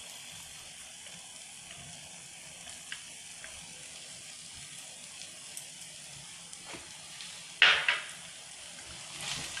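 Thick masala gravy sizzling gently in an iron kadai as crumbled khoya is dropped in, with a few small ticks. A brief, loud clatter comes about three-quarters of the way through.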